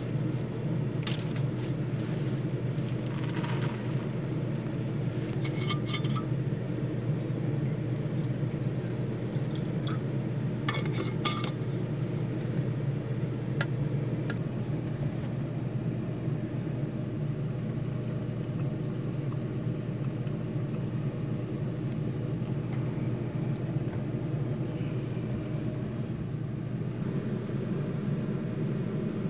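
Air conditioner running with a steady low hum, and a few brief glassy clinks like dishes being handled in its first half.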